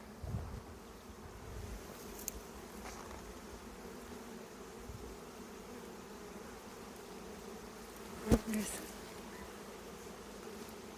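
Honeybees buzzing steadily around an open hive, a low even hum. A single sharp knock about eight seconds in.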